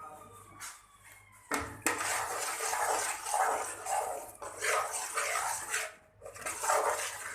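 A spoon scraping and stirring thick chana dal halwa against the bottom of a pan as it roasts in ghee, a rough scraping in repeated strokes that starts about a second and a half in.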